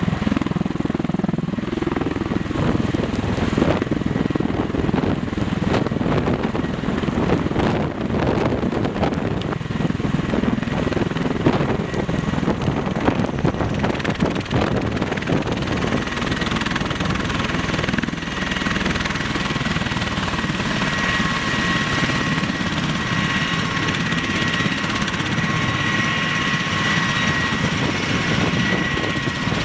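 Bell Boeing V-22 Osprey tiltrotor running on its two Rolls-Royce turboshaft engines, with a loud, dense proprotor rush and wash. In the first half it is full of crackle. Past the middle, a steady high turbine whine comes in as the aircraft sits on the ground with its rotors turning.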